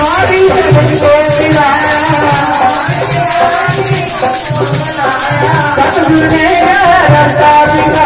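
Hindu devotional music: a drum beating about twice a second under a steady rattling of hand percussion, with a wavering melody line over it.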